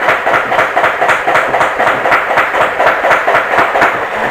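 Nerf Elite 2.0 Turbine CS-18 motorized blaster firing full-auto: the flywheels whir while the pusher drives darts through in a rapid, even clatter of about four to five shots a second.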